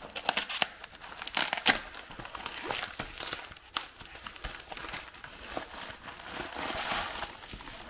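Pink plastic bubble mailer being torn open and handled by hand: crinkling and rustling of the plastic with many sharp crackles, loudest in the first two seconds.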